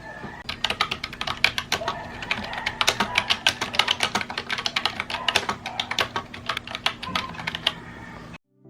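Fast typing on a computer keyboard: a dense run of key clicks that stops shortly before the end.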